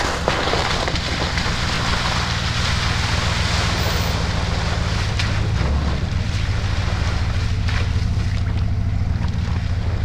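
Chevrolet Silverado pickup's engine running steadily as the truck drives through shallow water and slush, with water splashing around the tyres and wind on the microphone.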